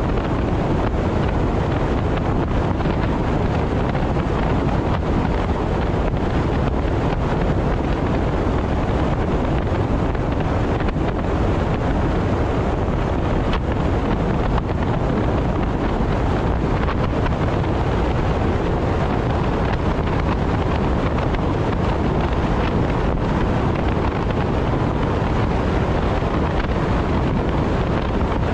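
Steady road and wind noise from a car driving at expressway speed, a low, even rush with wind buffeting the microphone.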